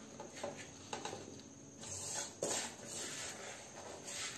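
A spoon scraping dry ground-peanut powder (palli podi) around an aluminium kadai, with soft rustling of the powder. It comes as several short strokes with a few light clicks.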